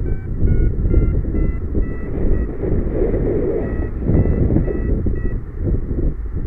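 Wind rumbling on the microphone in flight under a paraglider, with a flight variometer beeping in short regular tones, about two to three a second. The pitch shifts a little before the beeps stop near the end. A beeping variometer signals that the glider is climbing in lift.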